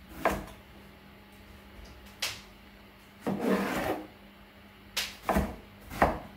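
Chef's knife cutting an aubergine on a wooden chopping board: a drawn-out scraping slice through the flesh, then a few sharp knocks of the blade against the board as it chops.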